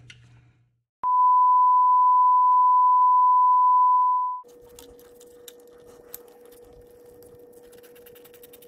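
A steady, loud single-pitch beep of about 1 kHz, like a censor bleep, lasting about three and a half seconds and starting about a second in. It gives way to a much fainter, lower steady hum with scattered light clicks.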